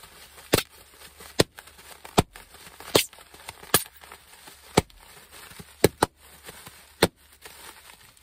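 Air-filled packing bubbles from a parcel popped one at a time by hand: about nine sharp pops, roughly one a second, unevenly spaced.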